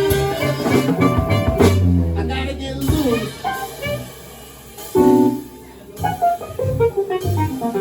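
A live band playing an instrumental break with guitar and drums. It begins dense and full, then after about three seconds thins out into short separate phrases with gaps between them.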